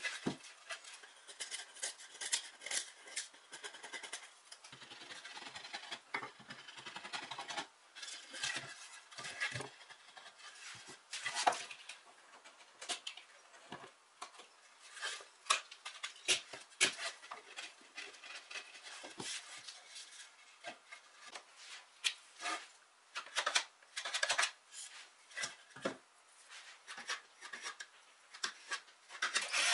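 Chisel and knife blades paring and scraping the edges of a bent plywood chair seat, with wood shavings coming off: a run of short, irregular scraping strokes and small clicks.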